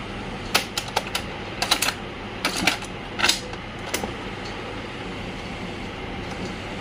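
Piano-key transport buttons of a Videocon Challenger MT-911 boombox's cassette deck being pressed: about a dozen sharp plastic clicks and clunks in small quick groups over the first four seconds, as the tape is set to play.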